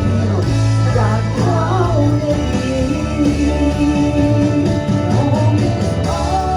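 Gospel song performed live: a woman singing long, wavering held notes over instrumental accompaniment.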